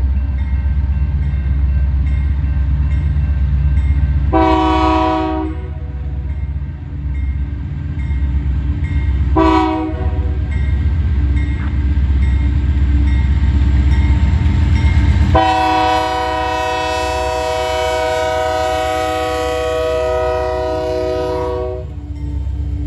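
Union Pacific diesel freight locomotive's air horn sounding for a grade crossing, a chord of several tones: a blast of about a second some four seconds in, a short blast near ten seconds, and a long blast from about fifteen to twenty-two seconds. Underneath is the steady low rumble of the approaching diesel locomotives.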